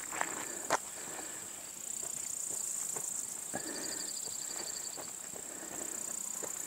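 Insects droning steadily in a high, shrill band, swelling louder about two seconds in and again near the end, with a rapid pulsing chirp midway. A few light knocks sound near the start.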